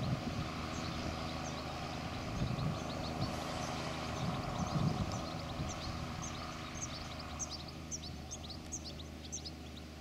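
John Deere 7810's six-cylinder diesel engine running steadily under ploughing load, pulling a five-furrow reversible plough. Short high chirps sound over it, more often in the second half.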